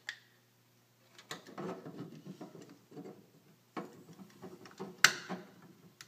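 Fire alarm manual pull station being reset by hand: scattered rattling and clicking of its plastic and metal parts, with one sharp click about five seconds in.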